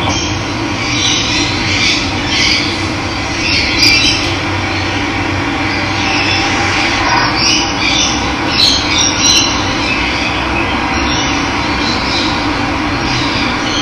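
Steady rush of running water with wild birds chirping and calling repeatedly over it.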